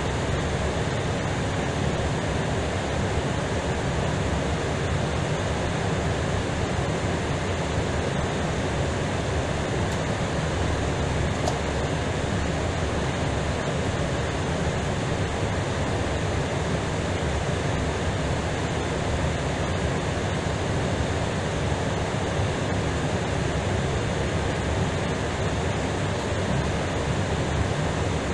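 Steady hiss and rumble inside the cockpit of an Airbus A320ceo as it rolls along the runway and taxis off after landing.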